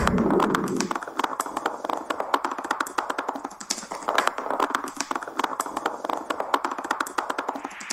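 Rapid, irregular clicking and crackling, many sharp ticks in quick succession, with a short hissing whoosh near the end.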